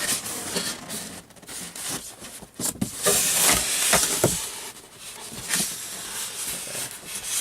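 Styrofoam packing and plastic wrapping being handled in a monitor box: rubbing and rustling with scattered knocks, busiest about three to four and a half seconds in.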